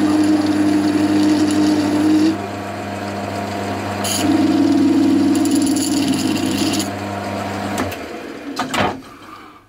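Metal lathe running with an aluminium pulley spinning in the chuck, while a small Dremel saw blade on a bearing, held in pliers, is pressed against the pulley to roll a stippled grip into it: a buzzing whir over the lathe's steady hum, in two stretches, the first ending about two seconds in and the second from about four to seven seconds. The lathe motor hum stops about eight seconds in, followed by a couple of knocks.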